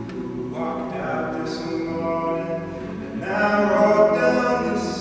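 All-male a cappella group singing close harmony with no instruments. Two short hissed consonants cut through, the first about a second and a half in and the second near the end, and the voices swell louder about three seconds in.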